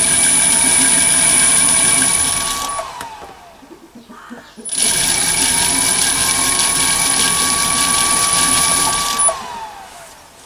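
Belt-drive Chinese mini lathe with a VFD-driven 3-phase motor, jogged twice with the spindle turning slowly: each time the motor's whine rises in pitch as the drive ramps up, holds steady with the belt and spindle running, then falls away as the spindle coasts to a stop. A thin, very high whine sounds whenever the motor is powered.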